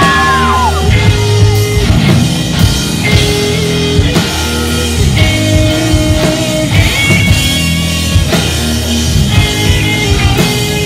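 Rock band playing live: electric guitars and a drum kit, loud and steady.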